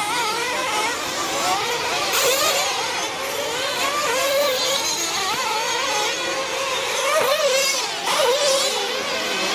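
Several 1/8-scale RC truggies racing at once, their small engines revving up and backing off in overlapping, high-pitched, wavering whines.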